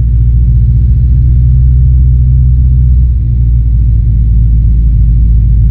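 Single-engine light aircraft's piston engine and propeller running steadily in flight, a loud constant low drone heard inside the cockpit.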